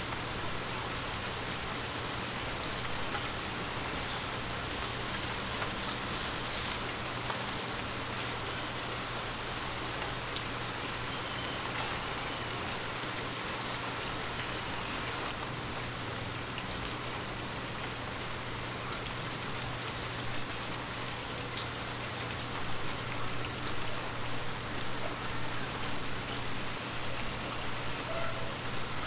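Steady rain falling: a continuous, even hiss of rain with now and then a single drop tick standing out. Over the last several seconds the rain swells and ebbs a little, in uneven pulses.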